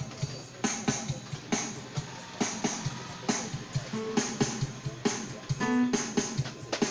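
Yamaha PSR-SX600 arranger keyboard playing a demo with a steady drum beat and plucked-string sounds, with a held note near the end.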